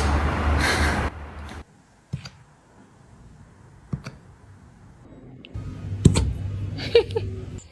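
A dog hiccupping: about four short, sharp hiccups, roughly one every two seconds. A low steady rumble in the first second cuts off abruptly.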